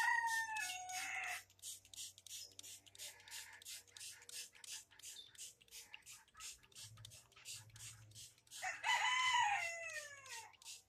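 A rooster crows twice: the end of one crow right at the start and a full crow about nine seconds in, its pitch falling at the close. A fast, even ticking goes on underneath.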